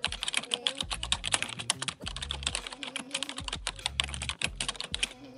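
Rapid, irregular computer-keyboard typing clicks, a sound effect for text being typed out on screen; the typing stops shortly before the end.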